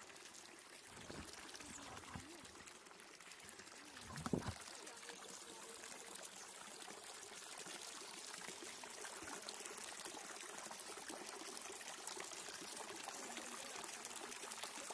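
Water pouring steadily from a spout into a wooden trough, growing a little louder, with a brief thump about four seconds in.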